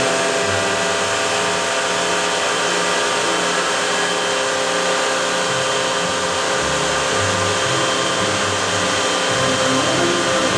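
Router spindle motor running steadily while milling a barley twist into a walnut column on a computer-controlled lathe attachment, with low tones shifting every second or so as the machine moves.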